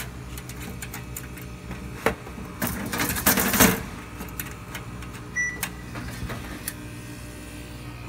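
Solid steel instrument lid being taken off and handled. There is a knock about two seconds in, a loud metal scraping and rustling from about two and a half to nearly four seconds in, then a few light clicks.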